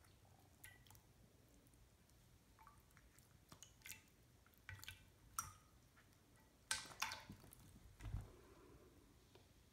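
A serval kitten's paw splashing in shallow water in a glass baking dish as it swipes at goldfish: faint, scattered splashes and drips, the loudest pair about seven seconds in, followed by a soft low thump.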